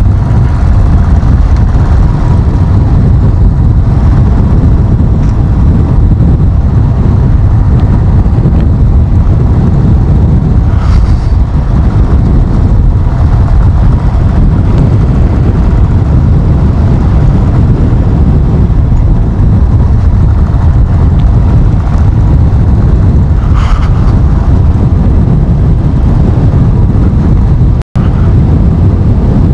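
Motorcycle riding on a rough gravel road: engine running under a loud, steady low rumble of wind on the microphone. The sound drops out for an instant near the end.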